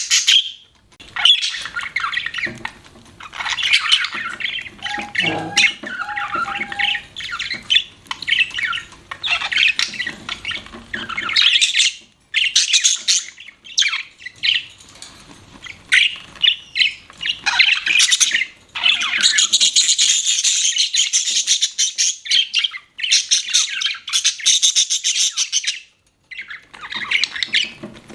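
Budgerigars chirping and chattering in fast, high-pitched runs broken by short pauses.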